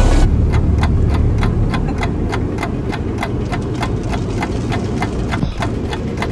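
Rapid, evenly spaced ticking, about four ticks a second, over a steady low rumble like a car's engine.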